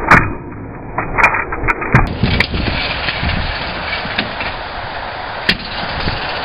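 Stunt scooter passing close and hitting the concrete: a sharp loud clack at the start, then several lighter knocks and clatters over the next couple of seconds and one more near the end, over a steady noisy rush.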